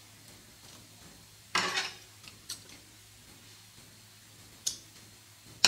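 Scissors being picked up and snipping off a cotton yarn tail: a brief clatter of handling about a second and a half in, then a single sharp snip near the end.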